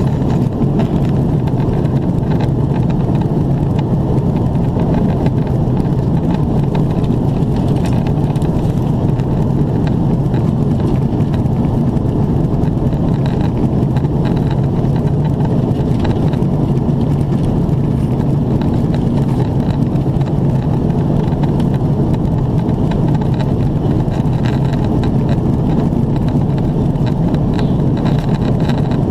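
Steady low roar inside the cabin of an Airbus A330-300 with GE CF6 turbofans during descent: engine and airflow noise heard beside the wing. It does not change in level.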